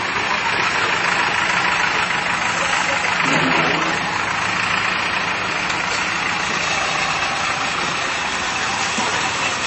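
Bulldozer's diesel engine idling steadily.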